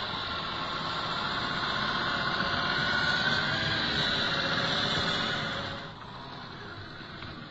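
Electric motor and gear whine of a Traxxas TRX-6 Mercedes-Benz G 63 6x6 RC crawler driving through deep snow. It grows louder as the truck passes close, then drops away abruptly about six seconds in.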